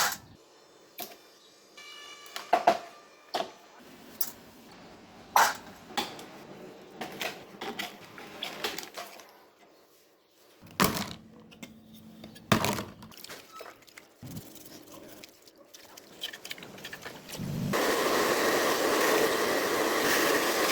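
Scattered clicks and knocks of small parts being handled during repair work on a mini ceiling fan. About seventeen seconds in, a small electric motor starts and runs steadily.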